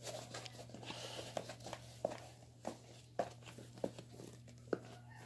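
Rustling at first, then a string of light, sharp taps a little over half a second apart, from new shoes being handled or walked in on a hard floor.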